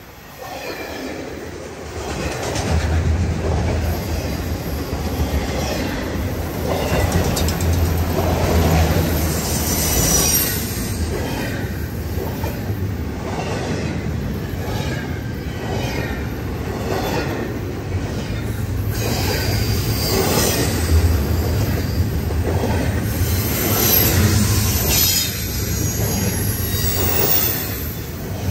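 Freight train cars, autoracks and then double-stack container well cars, rolling past close by: the wheels clack over the rail joints in a regular rhythm under a steady rumble that grows louder about two seconds in. A high wheel squeal comes and goes on top.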